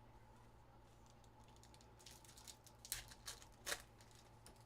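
A few short computer keyboard key clicks over quiet room tone, clustered about two to four seconds in, the loudest near the end of that run.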